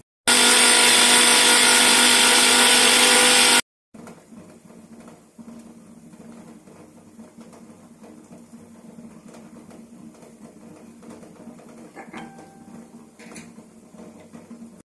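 Electric mixer grinder (mixie) running at full speed for about three seconds, grinding garlic and ginger into paste, then stopping abruptly. After it, a low steady hum with a few light clicks.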